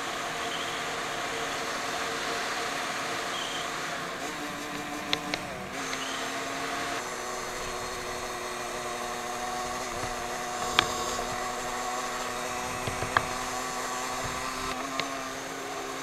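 Small engine running steadily while the vehicle is ridden, its pitch shifting up and down a few times about four to seven seconds in. A few sharp clicks or knocks sound over it.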